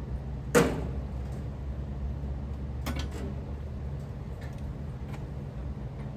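A sharp metal clank about half a second in, then a lighter double click near three seconds and a few faint ticks, from hand work on a Bard wall-mount air-conditioning unit, over a steady low hum.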